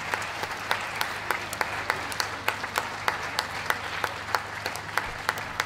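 Spectators clapping steadily. Many separate hand claps stand out sharply over a thinner haze of applause, with a steady low hum underneath.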